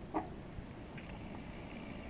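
Low, steady background hiss and hum of an old field tape recording, with a short click-like sound about a fifth of a second in and a fainter one at about a second.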